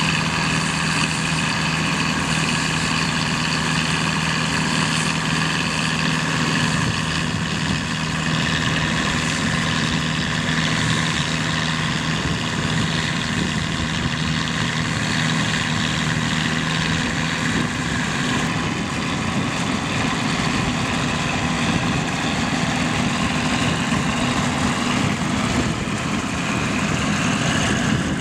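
1963 Aktiv combine harvester running steadily, its old Perkins diesel engine and threshing machinery together giving several steady whining tones. The low engine tone shifts about six seconds in.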